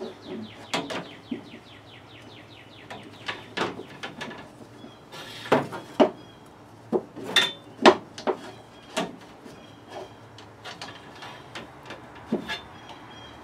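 Irregular clicks, knocks and rattles of a plastic PVC fitting and tubing being handled and fitted by hand, the loudest knocks clustered in the middle.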